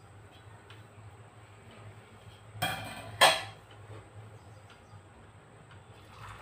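Stainless-steel pot handled on an induction cooktop, giving two sharp metal clanks about half a second apart, a little under three seconds in, with brief ringing. A faint steady low hum runs underneath.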